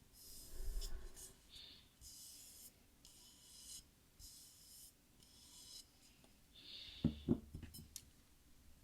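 Close-miked ASMR rubbing or scratching strokes, each well under a second long, repeated about once a second, then a few soft knocks about seven seconds in.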